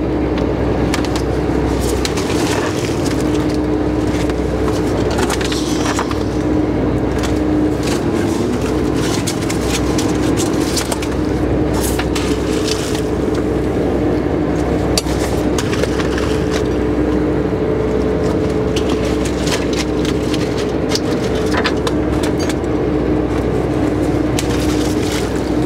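Steady drone of a steel commercial fishing boat's engine, with many scattered clicks and knocks over it.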